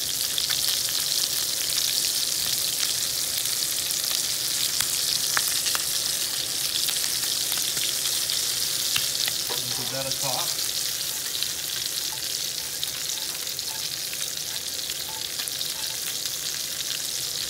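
Haricots verts sizzling in butter and olive oil in a hot non-stick frying pan: a steady high hiss with scattered small pops.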